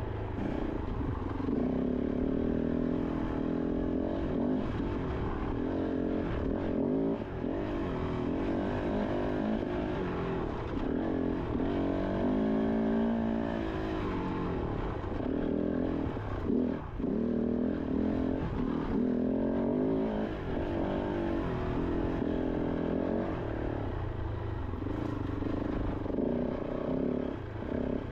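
Kove 450 Rally's single-cylinder 450 cc engine running under load on a trail ride, its note rising and falling with the throttle, with a few brief drops where the throttle is chopped.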